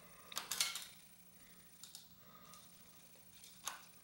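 A short cluster of clicks and a scrape about half a second in, then a couple of faint ticks: the steel brake cable being pulled tight through a bicycle rim brake caliper that is held squeezed shut.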